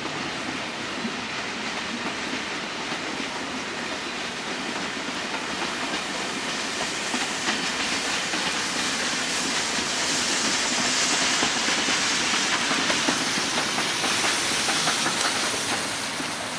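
Steam-hauled train passing close by: coach wheels clattering over the rail joints, then the steam locomotive going by with a loud hiss of steam. The sound is loudest a little past the middle and fades near the end.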